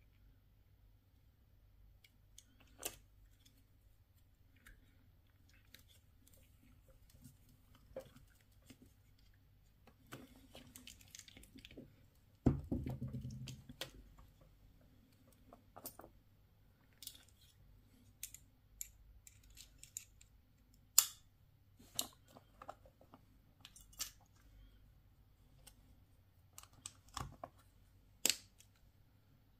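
Scattered sharp clicks and light taps of a plastic Mercedes-Benz key fob housing being handled and fitted together, with a dull thump about twelve seconds in.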